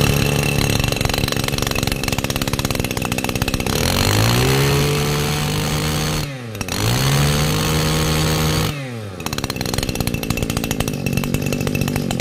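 Robin NB212 two-stroke brush-cutter engine running, just started: it idles steadily, then its speed rises and falls twice over about five seconds before settling back to idle.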